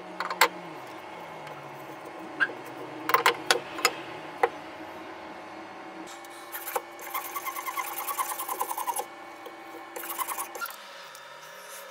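Metal C-clamps knocking and clicking as they are loosened and lifted off a glued wooden blank. Then a snap-off utility-knife blade scrapes the laminated wood in a quick run of even strokes, with a shorter burst near the end.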